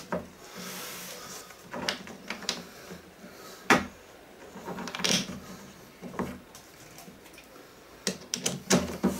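Scattered knocks and clicks of the wooden panels of a flat-pack cabinet being handled and fitted together, with the sharpest knock about four seconds in and a quick run of clicks near the end.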